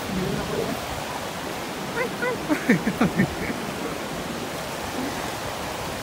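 Small Lake Michigan waves breaking and washing up on a sandy beach: a steady rush of surf, with wind on the phone's microphone. About two seconds in, a few short voice calls fall in pitch over about a second.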